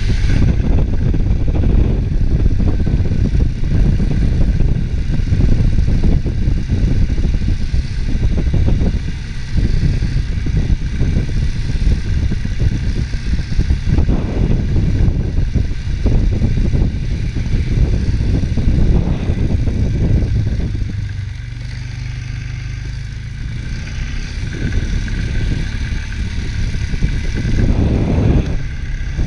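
ATV engine running under varying throttle while driving, easing to a quieter, steadier run a little past the middle before picking up again near the end.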